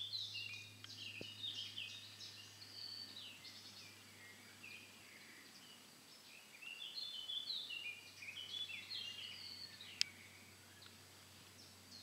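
Tits chirping in quick runs of short high notes, one run near the start and another after about six seconds, with a single sharp click about ten seconds in. A faint steady low hum lies underneath.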